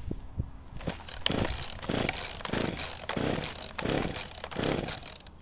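Poulan Pro 295 two-stroke chainsaw, just cold-started, being revved in a run of about six quick throttle blips, each surge coming roughly two-thirds of a second after the last.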